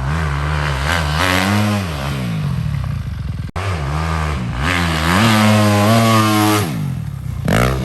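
Two-stroke dirt bike engine revving up and down repeatedly under throttle, held high and steady for a moment past the middle, with a brief sharp dropout about three and a half seconds in.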